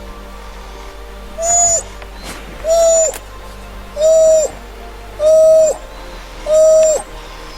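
An animal's hooting call, repeated five times at an even pace of a little over a second apart. Each hoot lasts about half a second, holds one pitch and drops sharply at the end.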